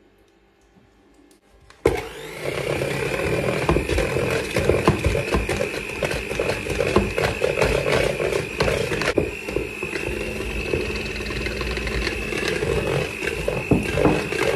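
AEG electric hand mixer switched on about two seconds in, then running steadily with its beaters whisking pancake batter in a plastic bowl: a steady high motor whine over the rattle of the beaters against the bowl.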